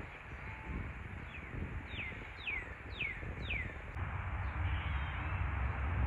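A songbird whistling a run of five falling notes, about two a second, the first one faint, stopping about four seconds in. A low background rumble runs underneath.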